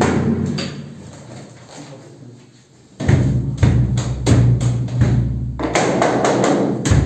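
A run of knocks and taps during the final adjustment of a composite door's frame. A low steady hum sits under them from about three seconds in.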